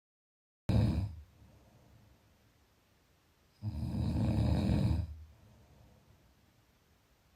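Snoring: a short snore about a second in, then a longer, rattling snore around four seconds in that lasts about a second and a half.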